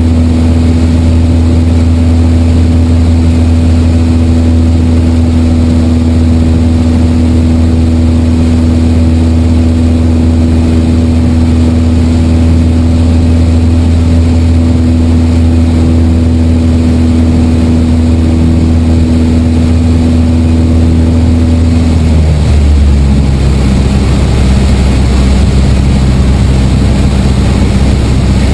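Piper Warrior's four-cylinder Lycoming engine and propeller droning steadily, heard from inside the cockpit. About 22 seconds in the engine note drops to a lower pitch as power is reduced, the throttling back for the descent to landing.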